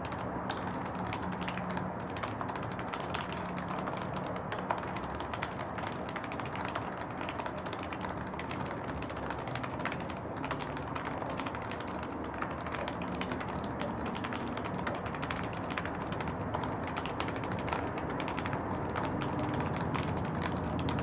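Continuous typing on a Topre electro-capacitive keyboard prototype, with OEM sliders and housings, 45 g rubber domes and a top-mounted plate, heard through a camera's built-in microphone. The keystrokes come fast and irregularly. The plate is loose, which the builder says causes some rattling.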